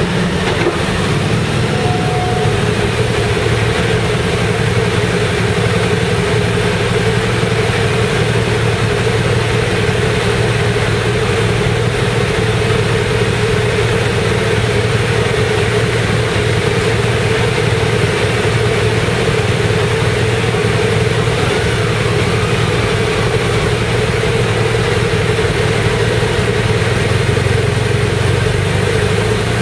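Motorcycle engines running steadily at low revs as the bikes roll slowly in single file. The rider's Honda CB1300 inline-four and the bike ahead sound inside an enclosed train carriage.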